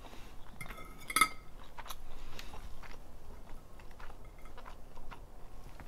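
Metal fork clinking and scraping against a ceramic plate, with one sharp ringing clink about a second in, amid soft chewing.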